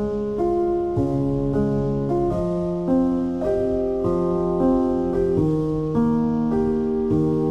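Background piano music: sustained notes and chords changing about every half second at a calm, even pace.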